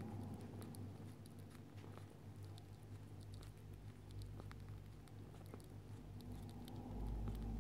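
Faint scattered small clicks and scratches of a pet rat moving about its cage, over a steady low hum; a low rumble comes in near the end.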